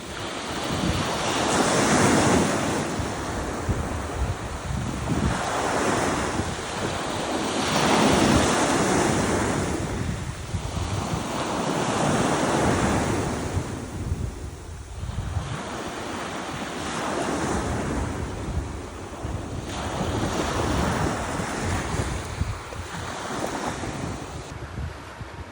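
Sea waves surging and breaking, rising and falling in swells every few seconds, with wind rumbling on the microphone.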